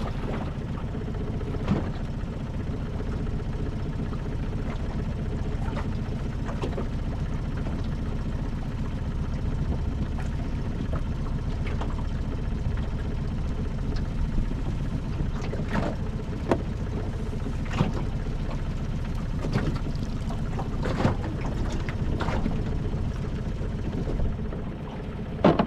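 A cast net being hauled back into a small aluminium boat, with scattered knocks and splashes at uneven times, over a steady low rumble of wind and water.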